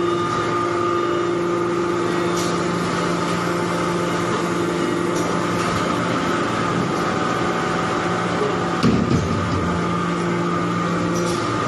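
Hydraulic baling press for metal shavings running with a steady, even hum, with one brief knock a little under nine seconds in.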